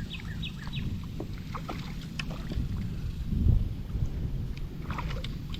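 Water and handling noise around a kayak: scattered small knocks and splashes over a low wash, with a louder thump about three and a half seconds in. A bird gives a quick run of repeated chirps in the first second.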